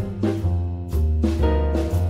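Background music with drums and a steady beat.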